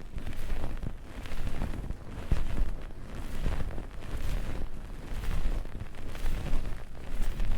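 Close-miked ASMR rubbing and scrubbing right on the microphone: a deep rumble with crackle that swells and fades in strokes about once a second.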